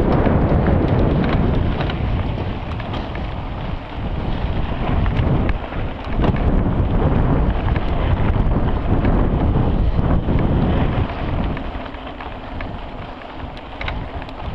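Wind buffeting the microphone of a camera on a mountain bike racing along a dirt trail, mixed with the rumble of the tyres and many small rattles and clicks from the bike. The loudness surges and eases, dropping for a few seconds near the end.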